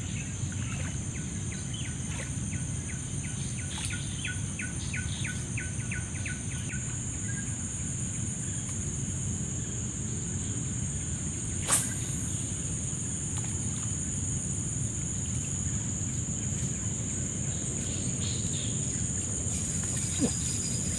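Lakeside ambience: insects keep up a steady high-pitched buzzing under a low steady background noise. A bird calls in a fast series of repeated chirps, about four a second, for the first six seconds. A single sharp click comes about halfway through.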